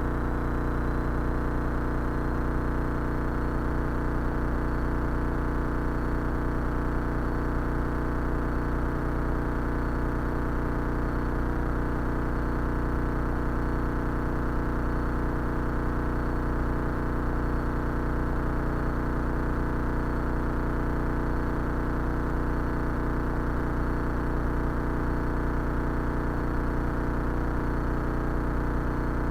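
Cessna 172 Skyhawk's piston engine and propeller droning steadily at a constant power setting while flying the traffic pattern downwind, heard from inside the cockpit.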